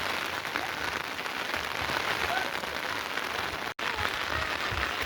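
Steady rain falling, an even hiss, which cuts out for an instant about three-quarters of the way through.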